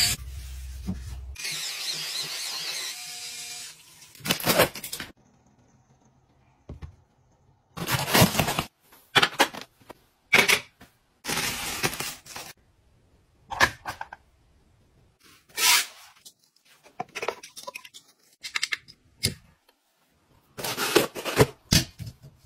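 A cordless electric spin scrubber running for about a second and a half, then a string of separate rustles, clicks and knocks from handling and unpacking plastic household gadgets.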